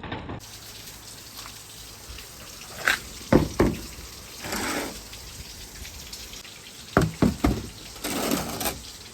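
Marbles rolling and clacking through a marble-run track: sharp knocks, a few about three seconds in and three more around seven seconds, with short stretches of rolling rush between them.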